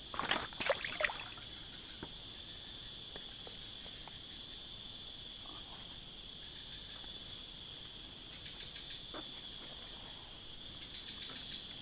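Steady, continuous chorus of insects, crickets or similar, shrilling at a high pitch, with a few short sharp handling knocks in the first second.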